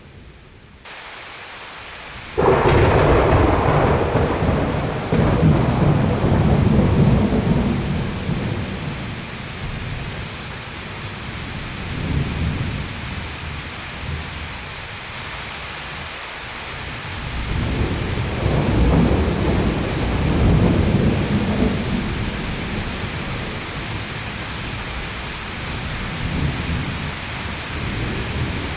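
Thunderstorm: steady rain begins abruptly about a second in. A couple of seconds later a sudden thunderclap rolls into a long, deep rumble that lasts several seconds, and a second long roll of thunder swells and fades a little past halfway, with the rain going on throughout.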